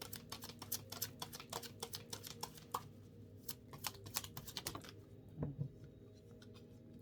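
Oracle card deck being shuffled by hand: quick, dense clicking and flicking of cards that thins to a few separate clicks after about three seconds and stops about five seconds in.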